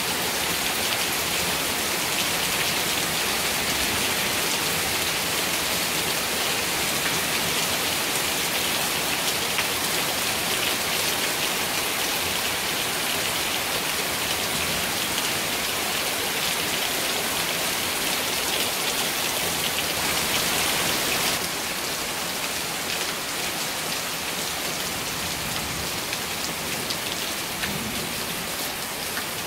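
Heavy, steady rain falling on trees and lawn, a dense even hiss. About two-thirds of the way through it abruptly becomes a little quieter.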